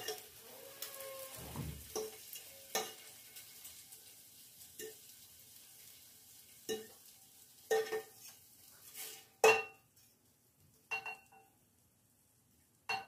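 Sirloin steak strips sizzling in a frying pan as they are taken out, with a cooking utensil knocking and clinking against the pan about once a second or two. The sizzle dies away near the end, leaving a few last clinks.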